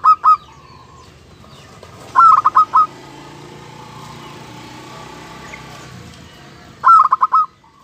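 A zebra dove (perkutut) cooing: three short phrases of quick staccato notes, one right at the start, one about two seconds in and one near the end.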